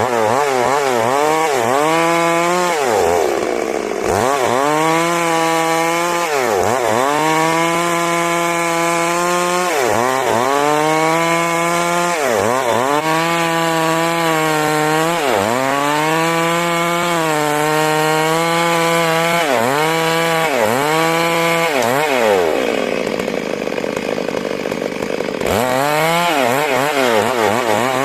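Stihl MS 382 two-stroke chainsaw ripping lengthwise through a large rain tree (trembesi) log, the engine held high and its pitch dipping and recovering every two to three seconds as the chain bites into the wood.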